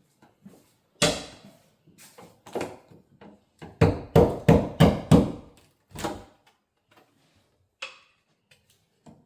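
About a dozen hard knocks on wood, loudest about a second in and bunched into a quick run of about three a second in the middle, as a small piece of wood is knocked loose.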